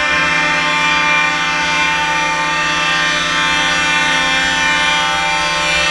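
Truck air horns held in a steady, sustained chord of several tones, over a low rumble of engines and wind.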